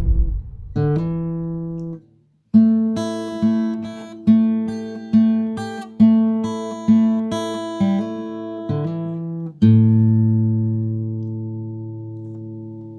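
Guitar music: chords strummed at a steady pace, about one a second, ending on a held chord that rings out and slowly fades.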